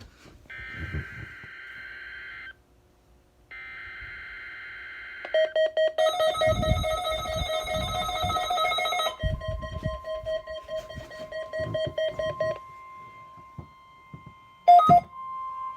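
Emergency Alert System test: two bursts of the SAME header data signal, a buzzing digital screech, about a second apart. These are followed by several seconds of loud steady electronic tones over other audio, then a single steady tone.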